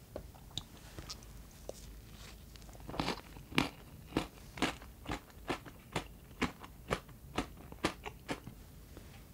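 A bite into a chocolate pancake omelet coated in crunchy chocolate-covered cereal pearls about three seconds in, followed by steady crunchy chewing, about two crunches a second. A few faint clicks come before the bite.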